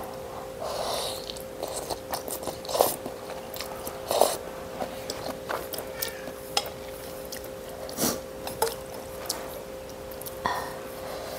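Someone eating noodle soup: slurping and chewing noodles, with chopsticks clicking against a stainless steel bowl now and then. A steady low hum runs underneath.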